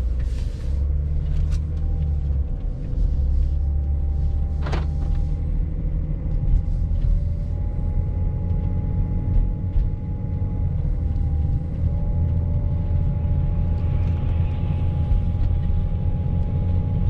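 Inside the cabin of a BMW X5 driving on a snowy road: a steady low rumble of engine and tyres, with a faint steady whistle-like tone over it, which the driver puts down to ice in the rear door. A single sharp click a little under five seconds in.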